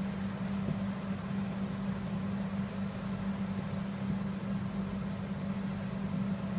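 A steady electric machine hum holding one low pitch without change, over a constant background hiss, with a few faint ticks.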